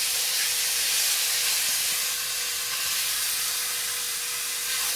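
Steak sizzling in hot butter in an electric skillet, a steady high hiss of searing just after the steak has been flipped.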